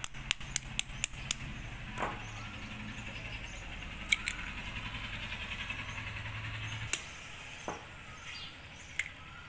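An egg shell tapped with a knife, about six quick clicks in the first second or so, then a few single cracks and clicks as the shell is pried open by hand. A steady low hum runs underneath and stops about seven seconds in.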